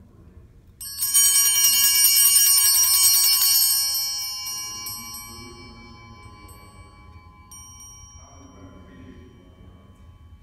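A set of four brass altar bells (Sanctus bells) shaken for one ring of about three seconds, the rapid strikes merging into a bright jangle, then left to ring on and fade out over several seconds. This single ring marks the epiclesis at Mass.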